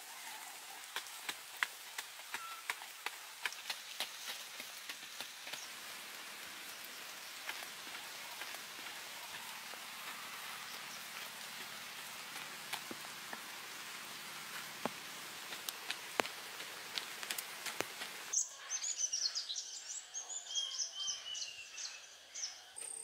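Steady outdoor hiss dotted with scattered sharp taps and ticks. About 18 seconds in the sound cuts abruptly to birds chirping, a run of quick rising and falling calls.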